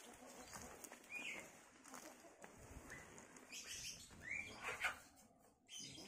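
Chickens scratching and moving through dry banana leaves, a quiet rustling and crackling with the loudest burst near five seconds. Two short chirping calls cut in, about a second in and again just after four seconds.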